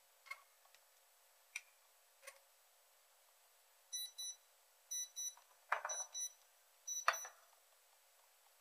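Philips RQ1290 electric shaver beeping: about four pairs of short, high electronic beeps, mixed with a few light clicks and two louder knocks from handling the shaver.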